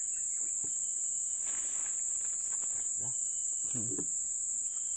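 Insects, crickets by their sound, keep up a steady, unbroken high-pitched drone. Faint rustling and a couple of soft knocks come and go beneath it.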